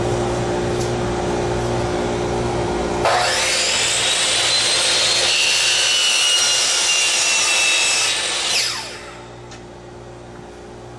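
Power saw running, then cutting through a wooden board from about three seconds in for roughly five seconds, loud with a high whine, before dropping back to running free.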